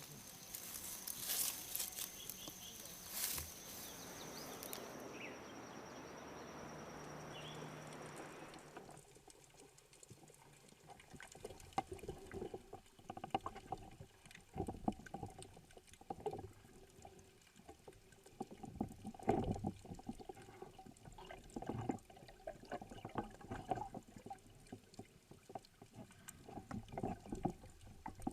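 Water splashing and sloshing in irregular bursts, after a steady hiss with scattered clicks over the first eight or nine seconds.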